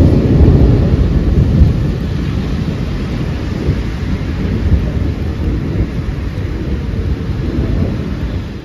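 Thunder rumbling over steady rain. The rumble is loudest in the first couple of seconds, then settles into a lower, continuous rumble, and the sound cuts off at the very end.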